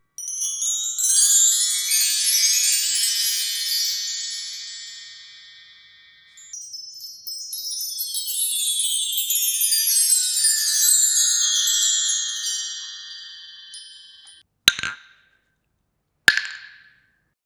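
Two long cascades of high, chime-like tinkling tones, the second sliding downward in pitch as it fades, followed near the end by two short sharp knocks, each with a brief ring.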